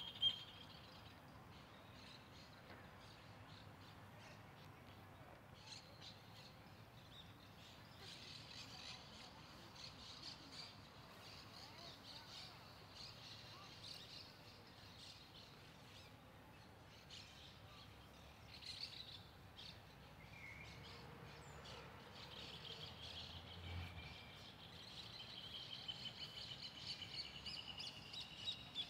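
Small birds chirping and twittering in the trees, faintly, over a low outdoor hum, with a fast run of repeated high notes near the end.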